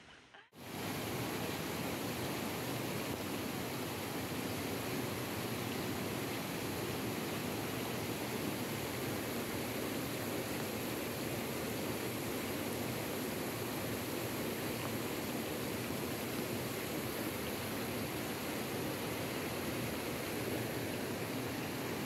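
Waterfall pouring steadily: a constant rush of falling water that starts abruptly about half a second in.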